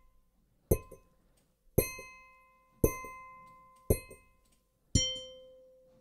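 Hammer strikes on a metal garbage bin, five hits about a second apart, each run through a bell physical-modeling filter so that it rings out with a sustained bell-like tone. The last hit rings at a lower pitch.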